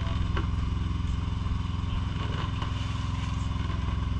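Fishing boat's engine running steadily, a low even drone with a fast regular pulse.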